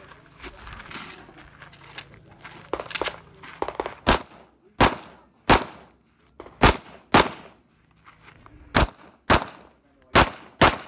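Handgun shots fired in a rapid string: about a dozen sharp reports from about three seconds in, most of the later ones in quick pairs about half a second apart.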